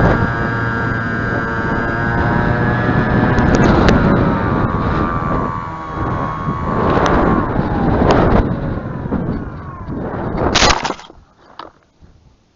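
Motor and propeller of a 3-channel high-wing pusher RC plane running with a steady whine that drops in pitch about a third of the way in, with gusts of wind buffeting the microphone. Near the end a sharp knock, then the motor sound cuts off suddenly.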